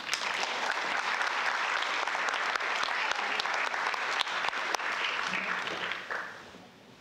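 Audience applauding, starting suddenly and dying away after about six seconds.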